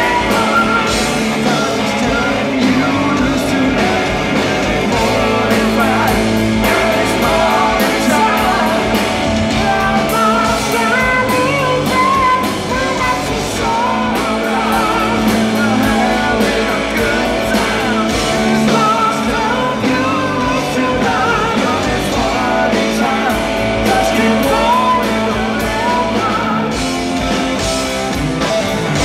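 Live rock band playing loud and steady: a man singing lead over electric guitar, bass guitar and drum kit, heard from the audience in the hall.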